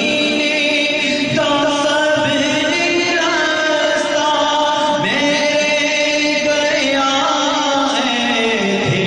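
A man's voice chanting an Urdu Salaam, a devotional greeting to the Prophet, in long, drawn-out melodic lines with sliding pitch.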